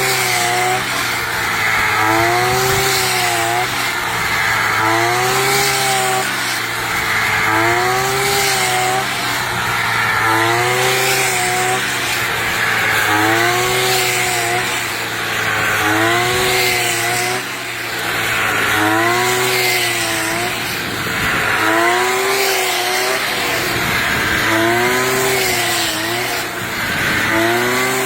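Brush cutter engine running, its pitch rising and falling in a regular cycle about every two and a half seconds as the blade is swung through standing rice stalks.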